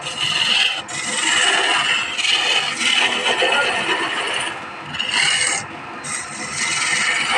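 Hand chisel cutting into a wooden spindle spinning on a lathe: a continuous rasping, shaving noise that eases briefly about four and a half and about six seconds in.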